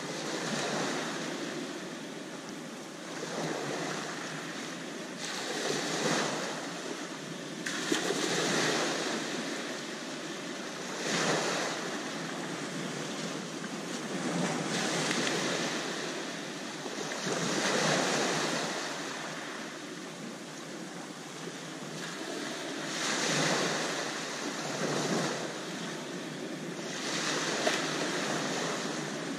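Small waves breaking and washing up and back over a pebble beach, a rush of surf swelling and fading every few seconds.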